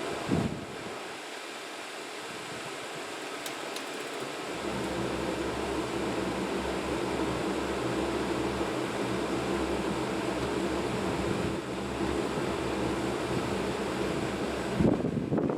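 Dometic RV furnace running on test, its fan blowing steadily, with a deeper steady hum joining about four and a half seconds in. A short knock comes near the start and another near the end.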